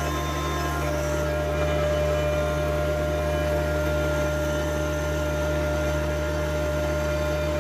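Small tractor engine running at a steady speed: an unchanging low drone with a steady whine above it.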